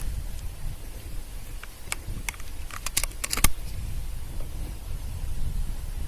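A handful of sharp clicks and knocks about two to three and a half seconds in, the last one the loudest, over a steady low rumble.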